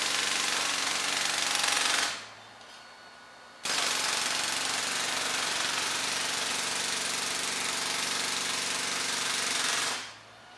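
Jackhammer hammering in two runs: it stops about two seconds in, starts again about a second and a half later, runs for about six seconds, and stops just before the end.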